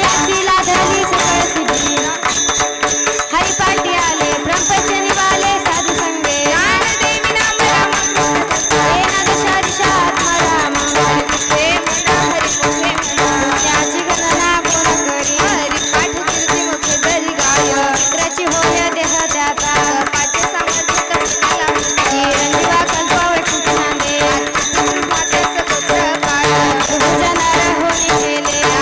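Marathi devotional bhajan music: dense, steady rhythmic percussion with ringing hand cymbals and drum, with some pitched melody or singing woven through.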